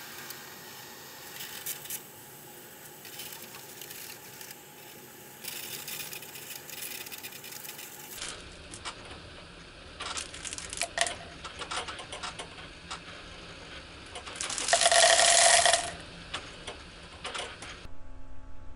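A Baxter robot arm's motors whirring with scattered clicks as it pours from a container into a plastic cup. The pour itself is loudest for about a second and a half two-thirds of the way through, a dense rattling stream with a ringing tone in it.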